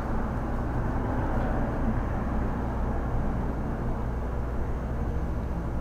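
Steady low hum with a soft hiss of background noise, unchanging throughout, with no distinct clicks or motor moves.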